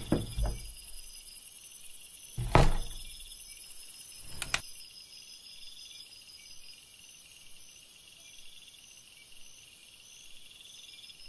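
Crickets chirping in a steady rhythmic pulse. A dull thump comes at the start, a louder one about two and a half seconds in, and a sharp click a couple of seconds later.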